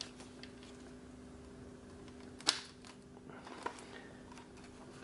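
A sharp plastic click about halfway through as a wing peg snaps into the plastic Swiftwind horse figure and locks in place, then a smaller click about a second later, over faint handling of the hollow plastic toy.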